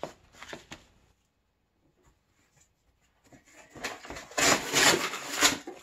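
Corrugated pizza-box cardboard being torn by hand, a run of loud ripping noises in the second half after a quiet stretch with a few soft rustles.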